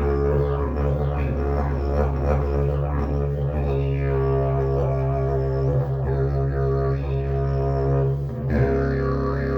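Agave slide didgeridoo played as a continuous low drone on a steady pitch, its overtones shifting and sweeping as the player shapes the sound. There is a brief dip in the drone near the end.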